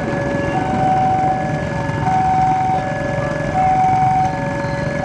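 Railway level-crossing warning alarm sounding a steady alternation between two tones, each held just under a second. Under it runs the rumble of a passing passenger train's coaches on the rails.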